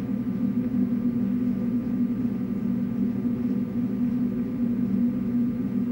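Steady low hum with a few constant tones and an even hiss, the background drone of an old audiocassette lecture recording.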